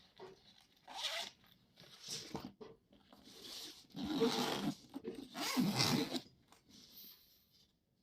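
A zipper being pulled in four rasping strokes, the longest about a second and a half just past the middle.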